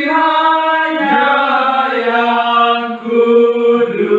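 A group of men singing an Indonesian hymn together, holding long notes that change about once a second.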